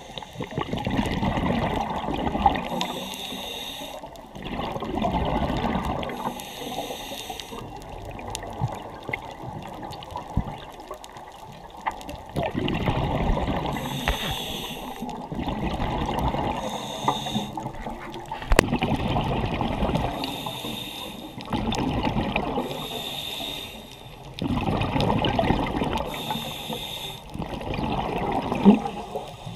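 Scuba diver breathing through a regulator underwater: each breath is a short high hiss of inhaling, followed by a rushing gurgle of exhaled bubbles. It repeats about every three to four seconds, with a longer pause partway through.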